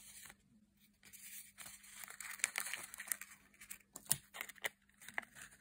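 Rolled paper tubes rustling and crinkling as they are handled and pushed together, with small sharp clicks and taps. It starts about a second in.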